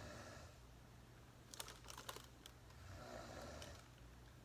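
Near silence, with a few faint clicks about a second and a half in as a rubber slide sandal is handled, and a soft breath about three seconds in.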